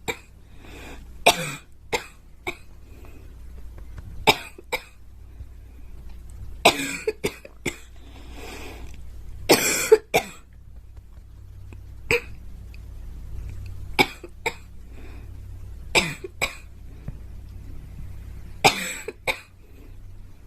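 A girl coughing repeatedly in short bouts of one to three coughs, a bout every two seconds or so.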